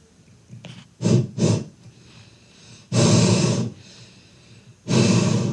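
A boy making forceful breathy, snorting noises close into a microphone: two short quick ones about a second in, then two longer, loud ones about three and five seconds in.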